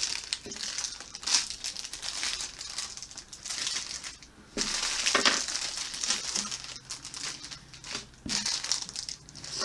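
Plastic snack wrappers crinkling as packets are handled and sorted, in irregular clusters with a short lull about four seconds in.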